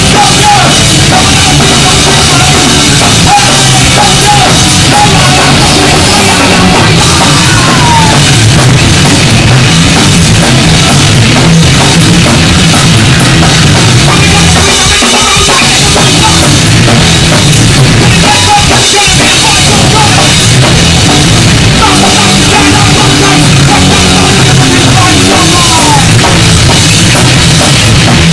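Punk band playing live and loud: electric guitar, bass guitar and a full drum kit, with vocals shouted into the microphone.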